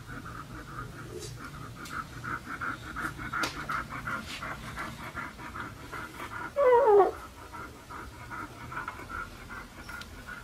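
A Siberian husky panting quickly and steadily, about four breaths a second. About two-thirds of the way in, a newborn husky puppy gives one loud squeal that falls in pitch and lasts about half a second.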